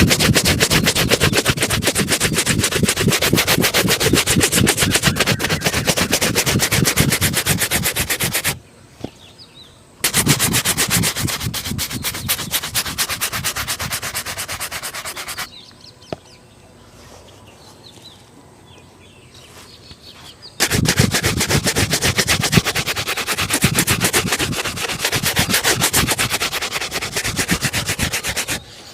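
A leather shoe being buffed with rapid back-and-forth rubbing strokes, in three long spells with short pauses between.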